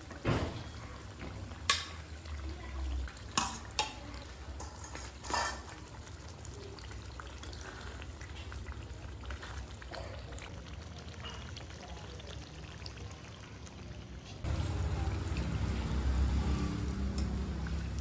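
Chicken curry bubbling in a steel kadai over a wood fire while fried chicken pieces are tipped in and stirred, with a few sharp knocks of the ladle and steel bowl against the pan in the first few seconds. The simmering grows louder and fuller about three-quarters of the way through.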